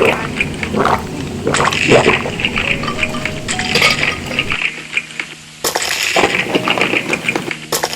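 Clinking of dishes and cutlery, with liquid sounds and faint background music.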